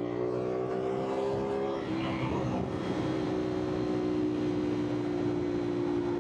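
CFMOTO 450SR parallel-twin engine heard from the saddle, its pitch climbing under throttle for nearly two seconds. Then a short break, like a gear change, and the engine holds a steady pitch while cruising.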